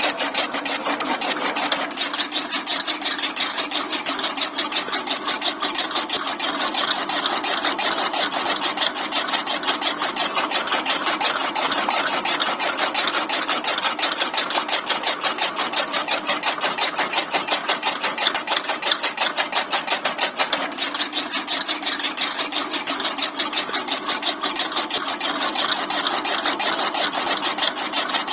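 Miniature chaff cutter chopping fresh grass, its flywheel blades driven by a small electric motor through a rubber belt: a fast, even chopping rhythm over the steady whir of the motor.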